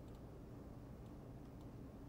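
Very quiet room tone: a low steady hum with a few faint clicks.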